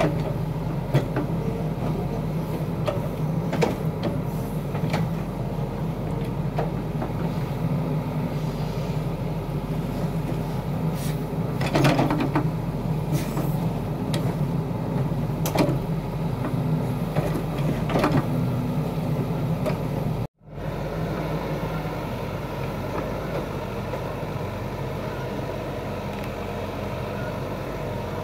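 Hitachi compact excavator's diesel engine running steadily while the bucket scrapes and knocks against clay and rock, with sharp scrapes every few seconds. The knocks stop about twenty seconds in, leaving only the steady engine.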